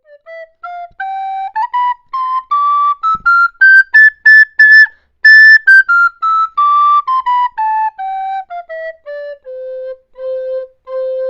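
A recorder playing a solo melody in short separate notes: it climbs step by step to a high peak about halfway through, comes back down, and ends on several repeated low notes.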